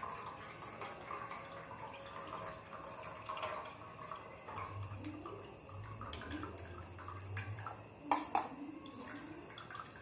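Buttermilk trickling in a thin stream from a steel bowl into a steel pot as it is drained off freshly separated homemade butter, with a couple of light clinks of a spoon against the bowl.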